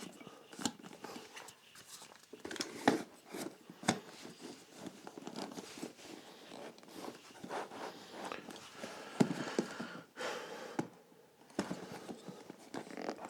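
Shoe trees being fitted into a pair of leather derby shoes: handling and rustling of the leather, broken by scattered sharp knocks and clicks.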